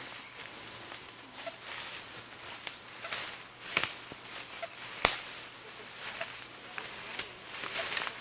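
Footsteps rustling through leaf litter and brush, with scattered sharp snaps; the loudest snap comes about five seconds in.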